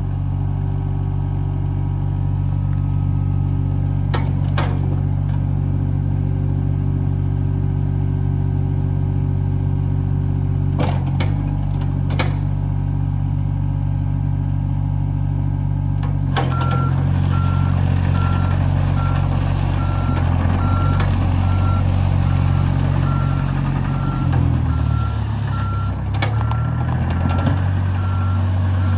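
John Deere 26G mini excavator's diesel engine running steadily, with a few sharp clunks now and then. About sixteen seconds in, its travel alarm starts beeping steadily, about one and a half beeps a second, and the engine's pitch dips briefly under load near the end.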